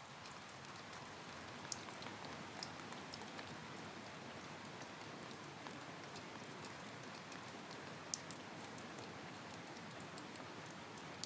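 Steady rain: an even, faint hiss with scattered sharp ticks of single drops.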